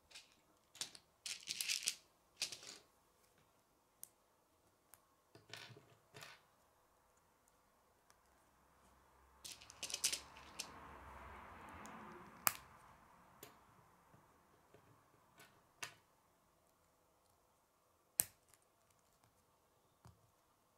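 Small plastic K'nex pieces clicking and rattling as they are handled and pressed together, in scattered bursts with a few single sharp snaps and a soft rustle about ten seconds in.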